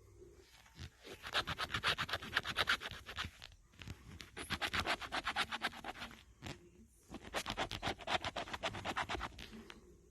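A lottery scratch-off ticket being scratched in three bursts of quick back-and-forth strokes, about eight to ten a second, with short pauses between bursts.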